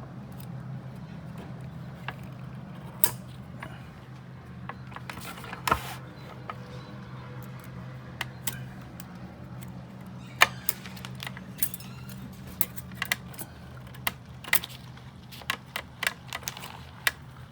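Light metallic clicks and taps of piston rings being fitted onto a Detroit Diesel 8V53 piston, scattered at first and coming faster near the end, over a steady low hum.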